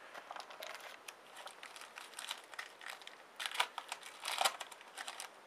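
Crinkling of a foil trading-card pack wrapper being handled, in irregular crackly bursts that are loudest about three and a half and four and a half seconds in.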